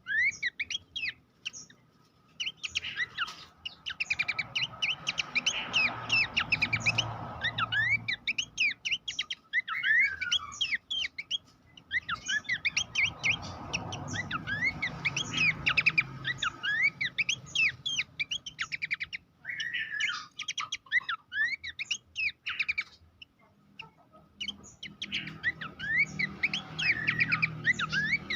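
Pelanduk semak (Horsfield's babbler) singing: long phrases of fast, high, squeaky chattering notes mixed with sliding whistles, broken by a few short pauses.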